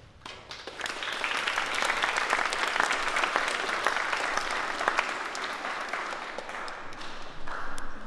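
Audience applauding: the clapping starts right away, swells within the first second, and thins out near the end.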